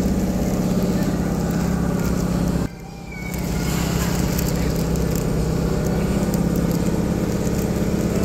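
Sanyo Electric Railway 3000-series electric trains running: a steady low rumble as one car moves along the platform, broken briefly about three seconds in, then resuming as a local train approaches the station.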